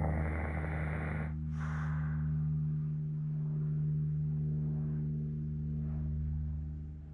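An elderly Hokkaido dog snoring in its sleep: a long noisy breath ending about a second in, then a shorter one, over a steady low hum.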